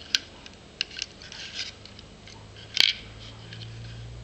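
Small metal clicks and scrapes as a tiny Allen wrench presses a pin out of a SIG Pro SP2340 pistol's trigger assembly: a sharp click just after the start, a scatter of light clicks around a second in, and the loudest click about three seconds in.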